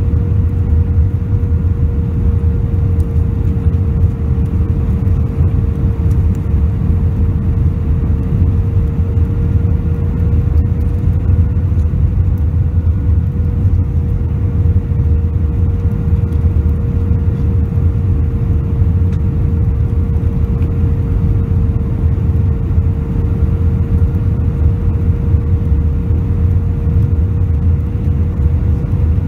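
Steady cabin noise of an Airbus A320-family airliner on approach with flaps extended: a low rumble of engines and airflow, with a constant hum over it.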